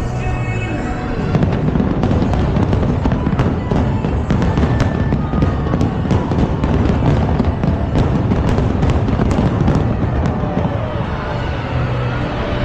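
A dense barrage of fireworks, with rapid bangs and crackles over a rumble of low booms, played against a pyromusical soundtrack. The crackling thickens about a second in and eases off near the end, where the music comes forward again.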